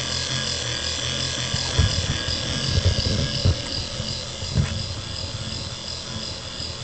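The small electric drive motor and oscillating mechanism of a Mars 888 signal light running with a steady hum. A few low thumps come between about two and four and a half seconds in.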